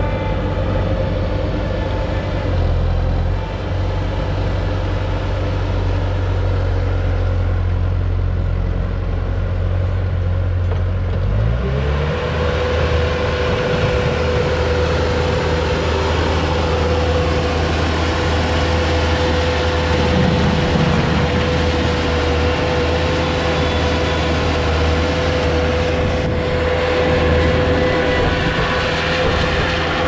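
Bobcat T300 compact track loader's diesel engine running at a low idle, then throttled up about a third of the way in. After that it runs steadily at higher revs with a steady high whine over the engine note.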